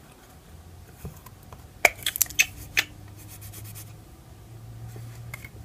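Wet n Wild plastic blush compact being handled and its clear hinged lid opened: a few sharp plastic clicks and taps about two seconds in, over a faint low hum.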